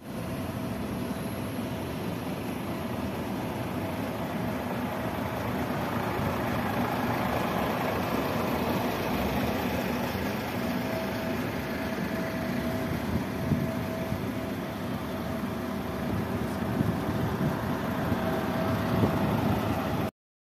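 Diesel engines of heavy Scania military trucks idling, a steady running sound with a few brief louder knocks in the second half, cutting off suddenly near the end.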